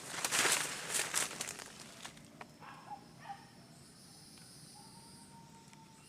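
Rustling and crackling through dense vegetation for about two seconds, fading out. After that comes a quiet outdoor backdrop with a steady high insect drone and a few faint distant calls.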